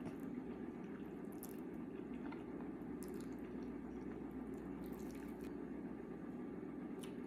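Close-miked wet chewing and mouth sounds of someone eating, with a few short smacks or slurps, over a steady low background hum.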